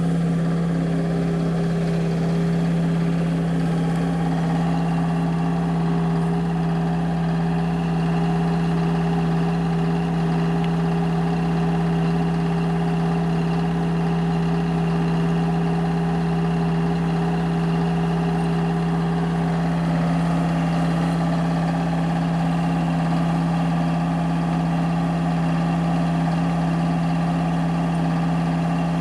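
An engine idling steadily with an unchanging low hum, no revving or change in speed.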